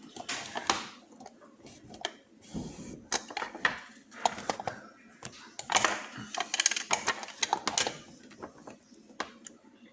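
Irregular metallic clicks and clatter from handling an oval lock cylinder and setting it in a small bench vise, busiest in two spells in the middle.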